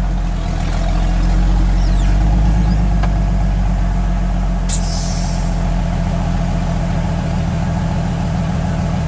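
Engine of an engine-swapped Suzuki Jimny running steadily at low revs as the 4x4 pulls up a steep off-road climb. A short sharp hiss cuts in about halfway through.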